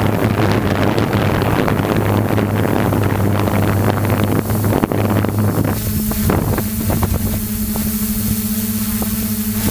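Hexacopter's six DJI E310 motors and propellers humming steadily in flight, with heavy wind buffeting on the onboard microphone that drops away about six seconds in, leaving the steady motor hum.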